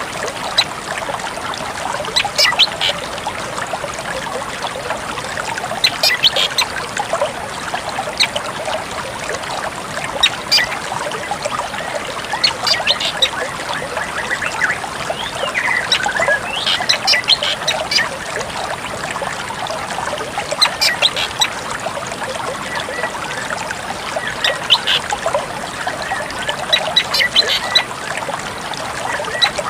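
Drongo song: clusters of sharp, rapid high notes every two to four seconds over a steady trickle of water.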